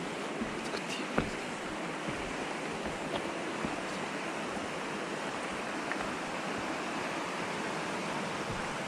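Steady rushing of water, an even wash of noise with a few faint clicks on top.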